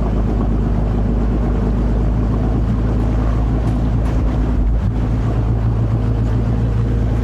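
Small motorboat's engine running at a steady speed, giving a low, even drone with a steady hum underneath that shifts slightly about five seconds in.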